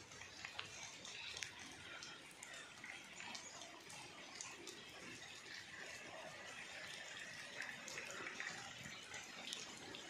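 Faint, steady light rain, with scattered small drips and ticks.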